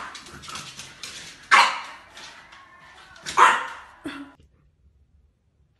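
French bulldog puppy barking twice, about two seconds apart.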